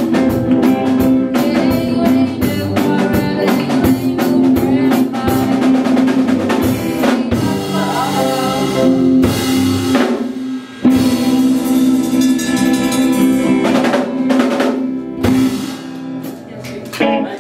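Live rock band playing: drum kit to the fore over electric guitars and bass. The music drops out briefly about ten seconds in, comes back on a loud hit, and grows quieter near the end.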